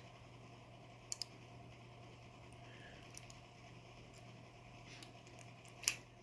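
Faint, scattered clicks of a lock pick working the pins of a Medeco 51S padlock core: a double click about a second in, a few light ticks, and a sharper click near the end, over a low steady hum.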